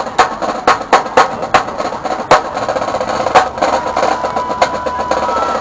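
High school marching drumline playing: fast, dense drumming on snares, tenors and bass drums, with loud accented hits scattered through it.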